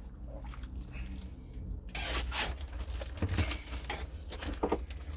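A utensil stirring and scraping in a wok of thick stew, with a couple of sharp knocks against the pan, over a steady low hum.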